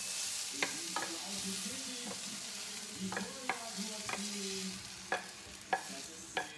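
Wooden spatula scraping and knocking against a frying pan as sautéed mushrooms and chicken are pushed out into a bowl, with irregular sharp knocks over the hot pan's sizzle, which fades away.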